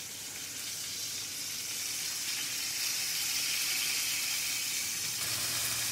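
Hanger steak sizzling steadily in hot fat in a cast-iron skillet as it is spoon-basted, the sizzle getting a little louder about two seconds in.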